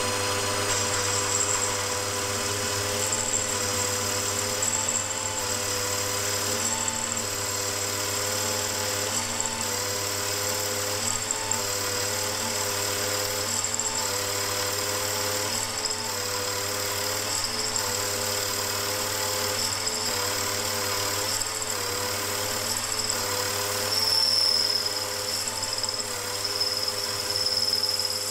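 WM18 milling machine running, its spindle driving a 14 mm cutter that is recessing a bolt-head counterbore into a metal plate. The motor and spindle give a steady whine over a low hum, with a slight rise and fall as the cutter works.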